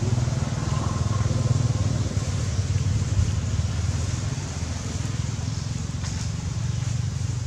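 A vehicle engine running steadily, a low rumble that eases a little in the second half.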